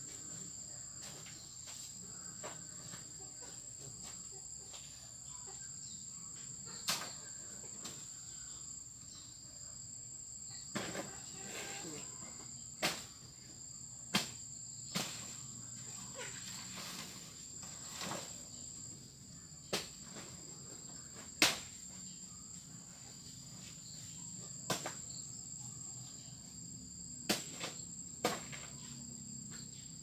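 Insects droning in two high, steady tones, with sharp knocks or snaps every few seconds at irregular spacing, the loudest about two-thirds of the way through.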